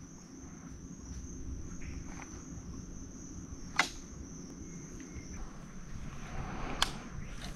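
A steady high-pitched insect chorus over a low background rumble, with two sharp clicks, about four and seven seconds in.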